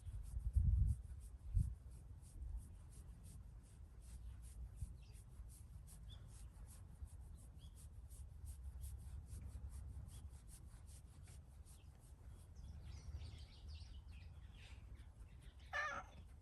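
Hands rubbing and massaging a cat's fur, with a few soft handling bumps in the first two seconds. Faint bird chirps sound in the background, and a short pitched cat sound comes near the end.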